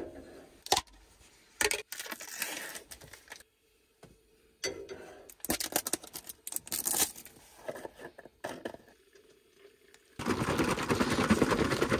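Cooking-prep clatter: utensils and containers knocking and clicking, with packaging rustling and tearing. About ten seconds in, a loud steady sizzle of frying starts.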